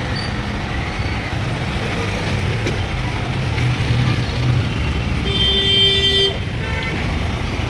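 Steady road traffic noise, with a vehicle horn sounding once for about a second, about five seconds in.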